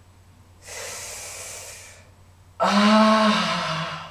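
A man's exaggerated, theatrical sighing: a long breathy intake of air about half a second in, then a long drawn-out voiced sigh that sinks slowly in pitch.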